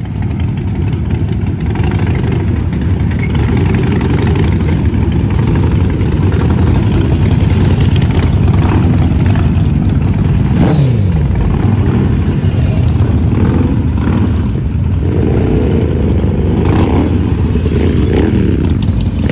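Loud motorcycle engines running and revving, the pitch sweeping up and falling away several times, with one clear drop about ten seconds in.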